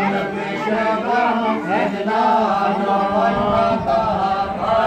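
A group of people chanting mantras together, many voices overlapping.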